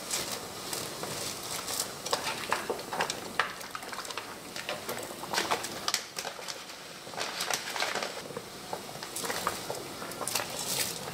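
Dry somen noodles being dropped into a pan of hot water and stirred with wooden chopsticks: irregular small clicks and crackles, several a second, over a soft hiss from the water.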